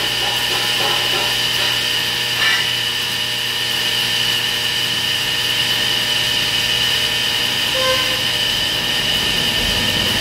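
Electric angle grinder running steadily on steel, an even high whine over a low hum, with one short knock about two and a half seconds in.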